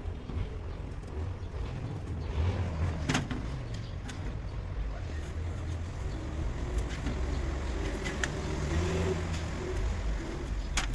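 Low, steady engine rumble, with a few sharp clicks: one about three seconds in, one about eight seconds in and one near the end.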